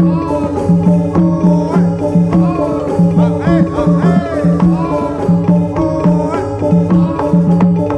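Live Javanese folk music for a warok performance: drums and pitched percussion keep a steady repeating pattern under a wavering melody whose notes bend up and down.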